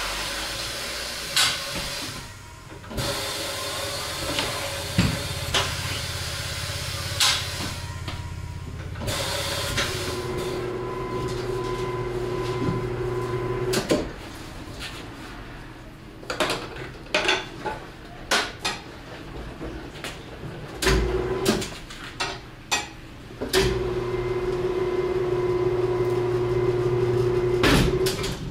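Tyre-shop work on a motorcycle wheel: a machine hums steadily in two long stretches, from about a third of the way in and again from about two-thirds in, with sharp metal clanks and knocks in between.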